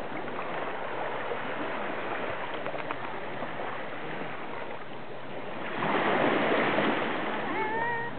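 Steady rush of small waves on the shore, swelling to a louder rush of noise about six seconds in. Near the end a black cat gives one short meow, close by.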